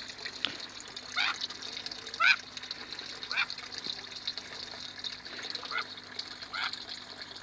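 Mandarin duck giving short downward-sliding calls, five of them about a second apart with a pause in the middle, over steadily running water.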